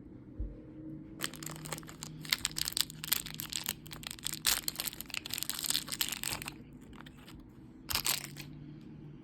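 Plastic toy packaging being crinkled and torn open by hand: a dense run of crackling for about five seconds, then one short crinkle near the end.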